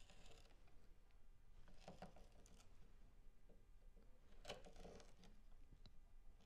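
Faint cuts of a BeaverCraft K8a/14 short bent gouge hollowing a small coffee-scoop bowl in silky oak: three soft shaving strokes, one near the start, one about two seconds in and the loudest about four and a half seconds in.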